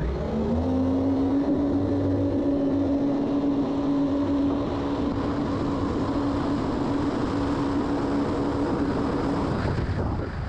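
Jet boat's 1053cc Yamaha four-stroke engine revving up in the first second, then holding a steady high note as the boat runs at speed. The note drops away shortly before the end.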